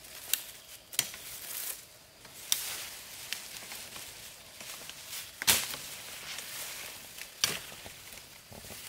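Fern fronds rustling as they are gathered by hand, with a handful of sharp snaps of fern stems breaking off, the loudest about halfway through.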